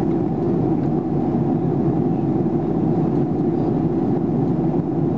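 Steady cabin roar inside a Boeing 737-800 airliner: its CFM56-7B jet engines and the airflow over the fuselage, a deep, even rumble with no change in level.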